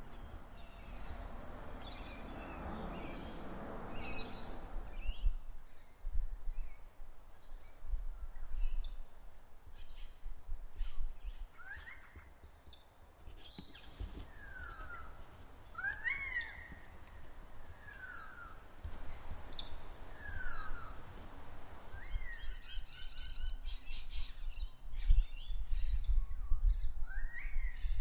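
Several birds calling: repeated short downward-sweeping whistles and higher chirps, with a fast trill a little past the middle. Under them, a low, uneven rumble of wind and handling noise on the Zoom H1N recorder's microphones, with a rush of noise in the first few seconds and heavier rumble near the end.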